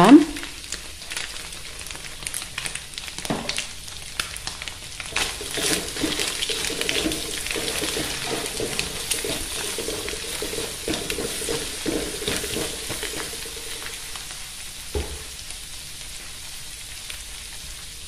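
Scrambled egg sizzling in oil in a wok, with a spatula scraping and stirring it against the pan through the middle stretch. Two short knocks, one a few seconds in and one near the end.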